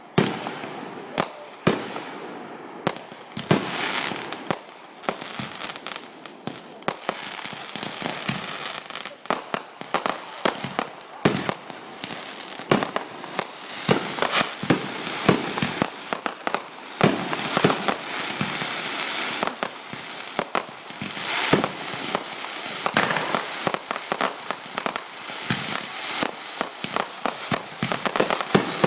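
Consumer fireworks going off in a dense, continuous barrage: many sharp bangs and pops overlapping, with crackling between them.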